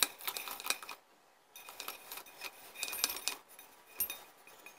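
Warm almonds, walnuts and sesame seeds poured from a pan into the stainless-steel bowl of an electric grinder, rattling and pattering against the metal with a faint metallic ring. Clinks of metal on metal come first, as the grinder lid is lifted off.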